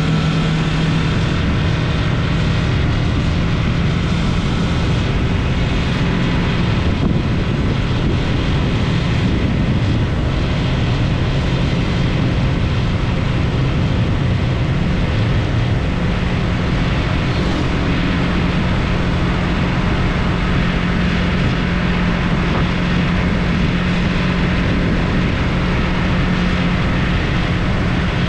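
Yamaha MT-03 motorcycle engine running steadily under way, a constant engine hum with a steady rushing noise over it.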